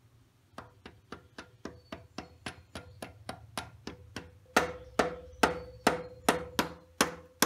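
A rubber mallet tapping a socket seated on the outer ring of a pilot bearing, driving the bearing into the 2JZ crankshaft: a steady run of about three light taps a second, which grow clearly harder about halfway through, each with a faint ring.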